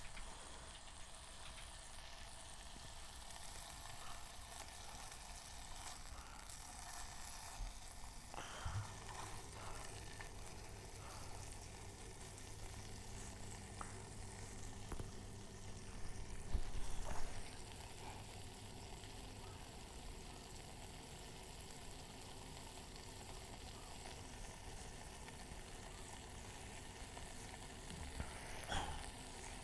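Bacon sizzling steadily in a non-stick frying pan over a Trangia 25 methylated-spirit burner. A few short knocks and scrapes come over it, the loudest cluster about halfway.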